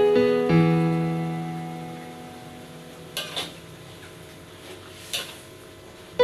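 Soft piano background music, its held notes fading away over the first two seconds. Then a metal spatula scrapes against a wok three times, twice in quick succession and once more near the end.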